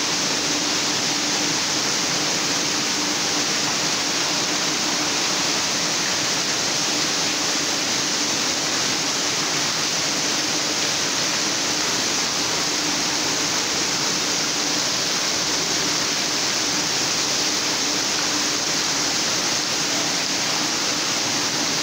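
Steady rush of water spraying and splashing from the fountains and spray features of an indoor pool area, with a low steady hum underneath.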